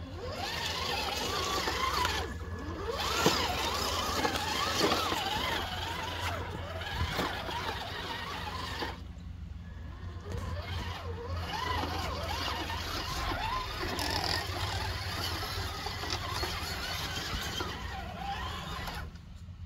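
Whine of a radio-controlled crawler truck's electric motor and gears, rising and falling in pitch as it is throttled on and off, with short pauses about two seconds in and around nine to eleven seconds. A steady rush of running creek water is underneath.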